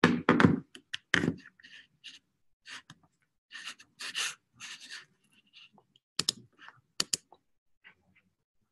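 Breathing and soft rustles close to the microphone, broken by a scatter of short computer keyboard and mouse clicks, two of them sharp, about six and seven seconds in.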